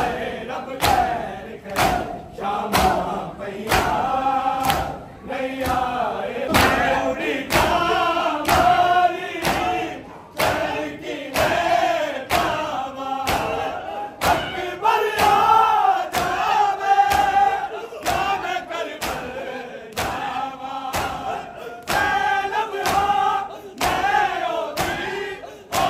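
A crowd of men chanting a noha lament in unison while beating their chests with open hands (matam): the slaps fall in a steady rhythm, about one and a half a second, under the group singing.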